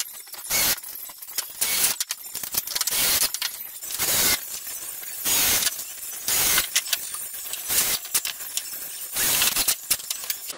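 Workbench assembly with a cordless brad nailer and a cordless drill driving screws into wood blocks: short loud bursts about once a second, with sharp clicks and the jingle of screws in a box between them.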